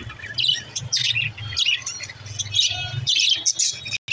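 Budgerigars chattering and warbling, a dense stream of quick, overlapping high chirps, over a steady low hum.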